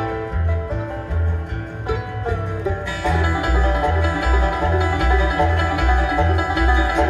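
Bluegrass band playing live: banjo, fiddle, mandolin, acoustic guitar and upright bass together over a steady walking bass line. The sound grows fuller and brighter about three seconds in.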